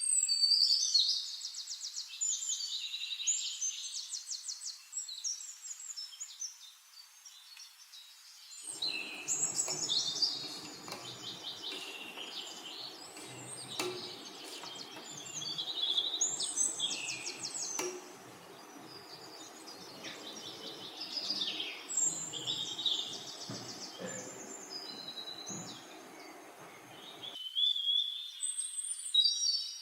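Birds singing: repeated high, fast trilling phrases, one after another. From about nine seconds in until near the end, a low, even noise runs underneath, starting and stopping abruptly.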